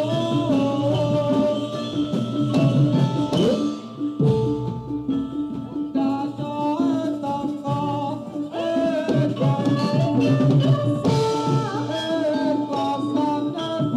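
Live Javanese jaranan gamelan music: drums and gongs keep the beat under a wavering, bending melodic line. The music thins out for about a second around four seconds in, then comes back in full.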